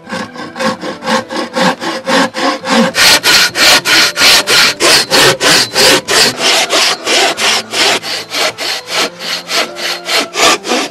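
Hand sawing with a wooden frame saw cutting across a block of wood. The rasping strokes come in a fast, even rhythm of about four to five a second and grow louder a couple of seconds in.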